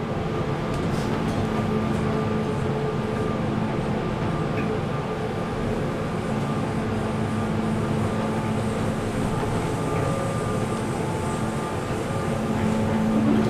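KONE hydraulic elevator travelling upward: a steady hum with a few held tones over even noise.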